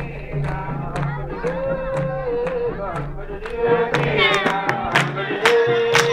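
Sudanese madih, Islamic praise singing: voices chant in long held notes over a steady beat about twice a second.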